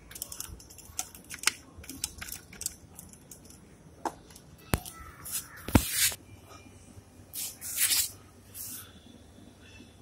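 Handling noise around a steel bowl of raw fish on a concrete floor: scattered clicks and knocks, two sharp knocks a little before and after the middle, then short scraping bursts near the end.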